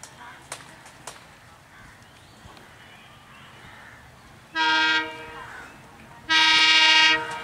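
Diesel locomotive's air horn sounding two blasts as the train approaches: a short one about four and a half seconds in, then a longer one just over a second later. Each is a steady multi-note chord.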